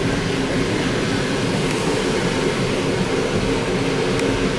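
Steady running noise of a passenger train heard from inside the carriage: an even rumble with a low hum.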